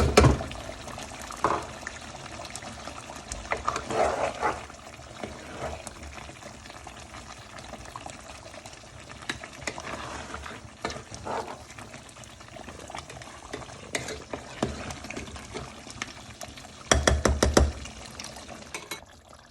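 A spoon stirring and scraping thick curry in a pot over a low flame, with scattered scrapes and a run of quick stirring strokes near the end.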